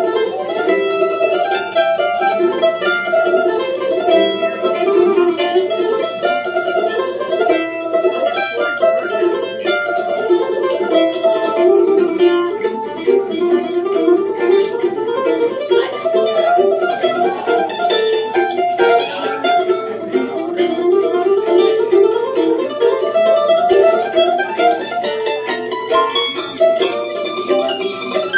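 Mandolin played live, a continuous stream of picked notes.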